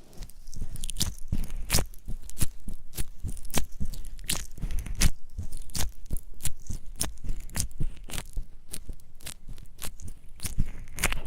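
Close-miked ASMR trigger sounds: an irregular run of sharp, crisp crunching clicks, several a second.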